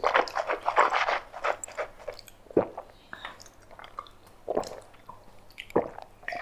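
Close-miked mouth sounds of eating and drinking: a dense run of short wet clicks for about two seconds, then a few single ones spaced out.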